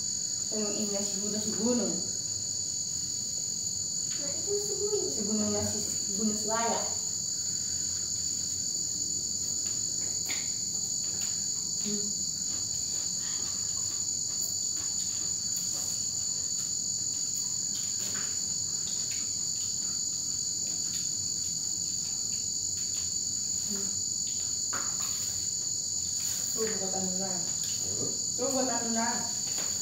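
Crickets trilling steadily in two unbroken high-pitched tones, with no break or change.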